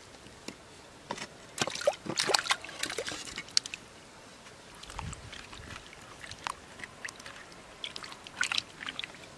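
Potatoes and water tipped from a clay bowl into a clay pot, a burst of splashing and clattering a second and a half in. Then hands scrub the potatoes in the water, with small sloshes and splashes near the end.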